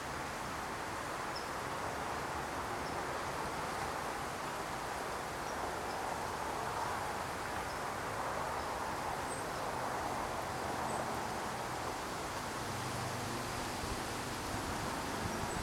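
Steady outdoor background noise with a few faint, very short high chirps scattered through it.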